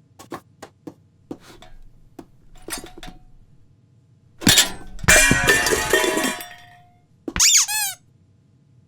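Cartoon sound effects: a run of light taps and ticks, then a loud crash of breaking glass or crockery with ringing pieces, followed by a short cry falling in pitch.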